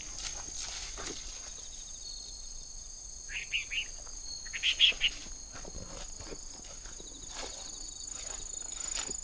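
A steady, high-pitched insect chorus, crickets or similar, with a bird giving a few short chirps about three seconds in and a louder burst of chirps near five seconds. Faint footsteps tick underneath.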